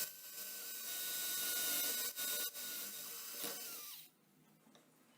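Electric drill running and drilling into metal, with a steady high motor whine. Two brief drops come about two seconds in, and then the drill stops about four seconds in, its whine falling in pitch as it winds down.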